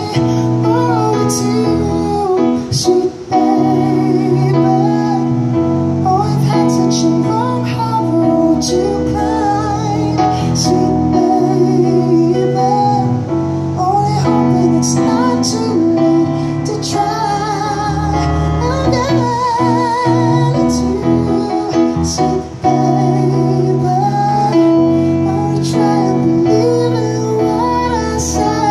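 A man singing a ballad through a microphone, his voice holding long notes with vibrato, over an electronic keyboard playing sustained chords and a bass line.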